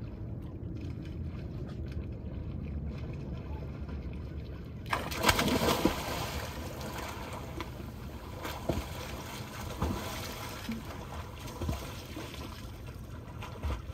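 Sea water sloshing, then a sudden loud splash about five seconds in as a swimmer lets themselves down into the sea. Splashing and hissing water follow, with a few sharper splashes.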